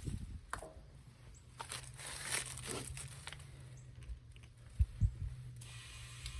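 Scattered small clicks and crinkling handling noises from work on a freshly plugged tractor tire, over a faint steady low hum. About a second before the end a steady hiss sets in.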